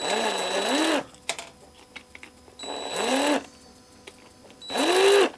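Small electric screwdriver with a #1 Phillips bit backing out the tiny battery-cover screws. The motor whirs in three short bursts, its pitch rising and then falling as each burst spins up and runs down.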